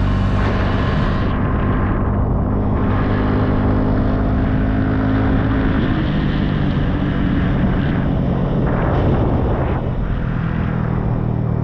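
Motorbike engine running steadily while riding, with road noise over it.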